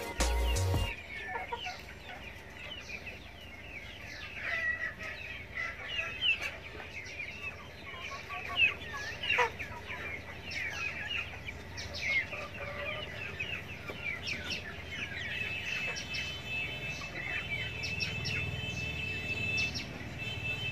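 A flock of free-range village chickens clucking and peeping, with many short high calls overlapping and a few louder squawks. Background music cuts off about a second in.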